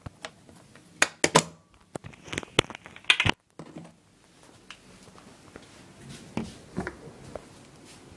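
Sharp clicks and knocks from handling a KWA Glock 18C gas blowback airsoft pistol, in irregular clusters with the loudest about three seconds in and softer ones near the end.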